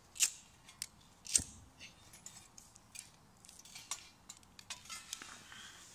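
Disposable flint lighter being struck, with three sharp clicks of the spark wheel in the first second and a half. Fainter irregular ticks follow as the flame is held to a wrapped fire-lighter cube in a steel firebox.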